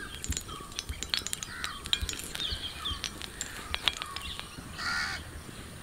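Small birds chirping on and off, with scattered sharp crackles and clicks from the firewood fire burning under the griddle.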